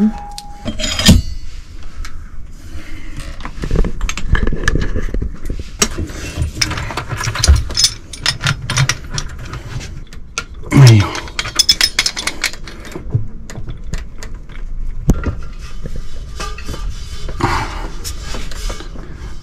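Brass gas fittings and an LPG pressure regulator being handled: scattered metallic clicks, clinks and knocks as the hose adapter is pushed in and the regulator is fitted onto the gas cylinder's valve, with a brief low sliding sound about halfway through.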